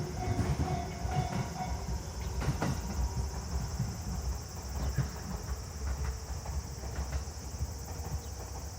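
209 series electric train's wheels rumbling over the rails and clicking at rail joints, fading as the train moves away.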